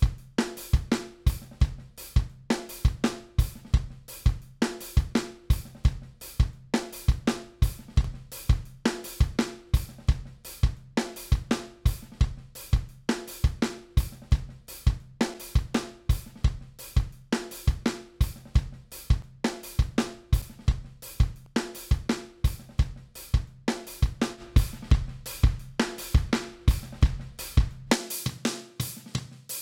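Recorded metal drum-kit loop of kick, snare, hi-hat and cymbals repeating in a fast, steady pattern, run through the Lindell Audio 80 Series channel-strip plugin. Near the end its deep bass drops out as a new preset is loaded.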